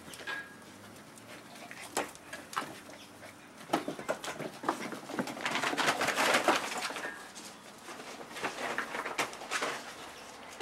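Puppies at play: scattered knocks, scuffles and rustling, busiest in the middle, with two brief high chirps, one just after the start and one about seven seconds in.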